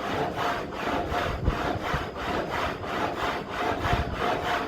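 Water-powered muley saw running, its vertical blade and frame working up and down in an even rhythm of about three beats a second. The blade is being brought up to speed and is not yet cutting the log.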